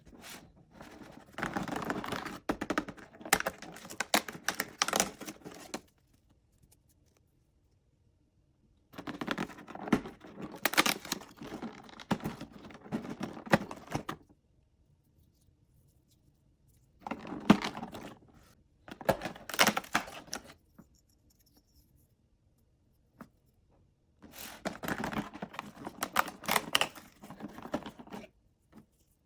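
Toy packaging being opened by hand: crinkling, tearing and clicking in five bursts of a few seconds each, with short silences between.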